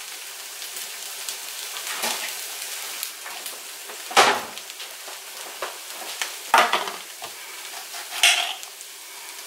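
Seasoned ground turkey taco meat sizzling steadily in a pan on low heat. A few sharp clatters of kitchen things come through it, about four seconds in, at about six and a half seconds, and near the end, the last as a knife cuts a tomato on a glass cutting board.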